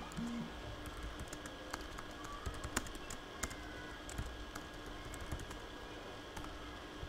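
Typing on a computer keyboard: an irregular run of key clicks that thins out after about five seconds, over a faint steady hum.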